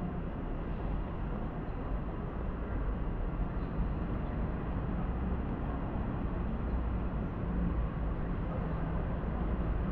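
Steady city street background noise with a low traffic rumble and no distinct events.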